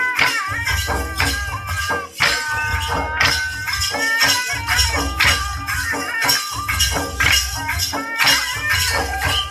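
Chhattisgarhi folk dance music: a steady drum beat with a deep bass, jingling percussion and a wavering melody line over it, dipping briefly about two seconds in.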